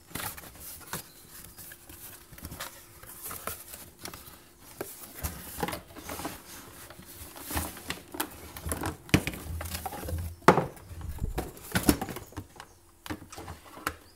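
Cardboard box being handled and opened, with rustling and scraping of cardboard and irregular knocks as a plastic coffee maker is slid out and set down on a wooden bench. The loudest knocks come in the second half.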